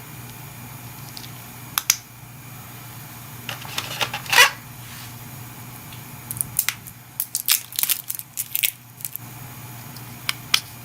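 Packaging being handled. There are scattered light clicks, a longer crinkling swish about four seconds in, and a busy run of rustles and clicks from about six to nine seconds, over a steady low hum.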